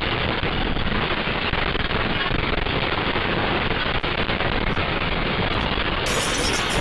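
Earthquake shaking sound effect: a steady, dense rumbling noise that does not let up, with a brief brighter hiss near the end.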